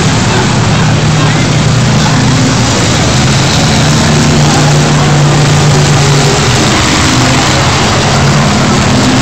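Several race car engines running together on the oval track, a loud, steady drone that holds throughout.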